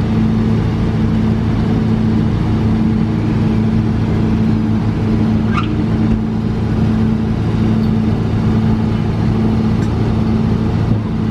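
Engine running at a steady speed, a loud even drone that does not change. A brief high squeak about halfway through.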